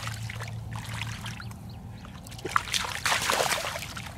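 Irregular splashing and sloshing in shallow, grassy floodwater, growing busier about two and a half seconds in.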